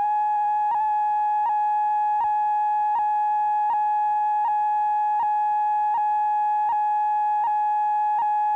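Steady electronic line-up tone on unedited videotape: one unchanging pitch a little under 1 kHz with faint overtones, ticked by a faint click about every three-quarters of a second. It cuts off abruptly near the end.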